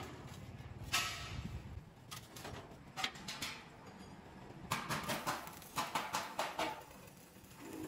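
A heavy metal knock about a second in as the steel air tank is handled, then a stick welder's arc crackles and spits in a string of short strikes from about five to seven seconds in, welding the tank seam.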